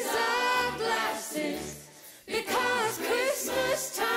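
Background song with sung vocal lines over a steady low beat, breaking off briefly about halfway through.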